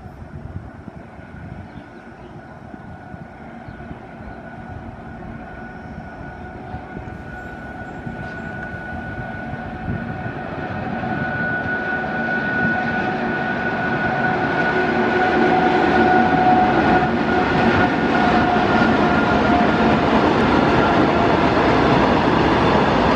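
Freight train with two electric locomotives approaching and running past on the rails, a steady whine over a rumble of wheels that grows steadily louder, ending in the rolling rumble of the open freight wagons going by.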